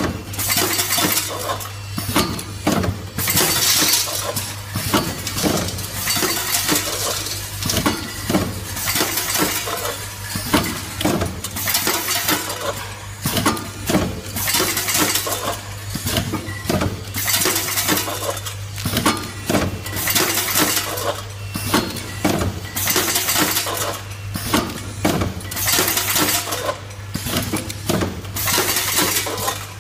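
Automatic screw counting and packing machine running: screws rattle and clink continuously along its vibrating feed chute and drop past the counting sensor, over a steady low hum.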